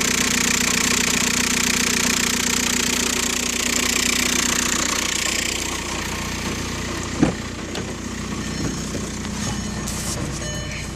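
The 1.9-litre four-cylinder BEW TDI diesel idling with a noise coming from the manual transmission. The noise goes away when the clutch is held fully down. About halfway through, the bright high hiss fades, and there is a single sharp knock about seven seconds in.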